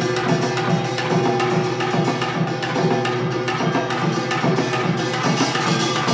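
Samulnori percussion ensemble playing: kkwaenggari and jing gongs ringing over janggu hourglass drum and buk barrel drum in a fast, steady, dense rhythm.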